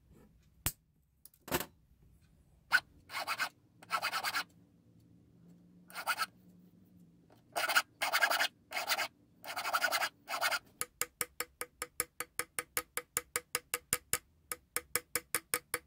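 A few sharp snips of end-cutting nippers on a silver pin, then a needle file rasping on the silver spoon in short strokes. Near the end it changes to quick, even light taps, about five or six a second, of a small hammer on the pin end in the spoon's textured silver cap.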